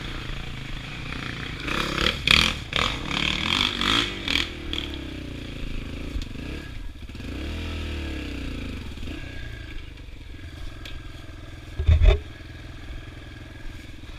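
Yamaha TT-R dirt bike's single-cylinder four-stroke engine running, its revs rising and falling, with clattering and scraping in the first few seconds. The engine settles to a steady low idle, with one loud thump about twelve seconds in.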